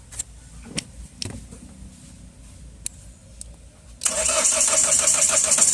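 A few light clicks, then about four seconds in the Mahindra XUV500's starter motor cranks the engine with a loud, fast rhythmic whirr.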